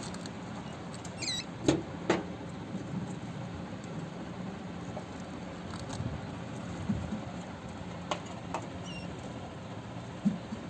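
White rats scrabbling and rustling over hay and food scraps in a wooden cage, with a few sharp knocks and a couple of brief high squeaks, one about a second in and one near the end.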